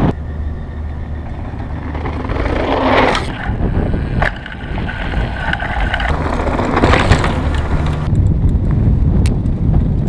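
Wind buffeting a GoPro microphone while a mountain bike runs fast down a loose gravel trail, tyres crunching, with a few sharp knocks as the bike hits rocks.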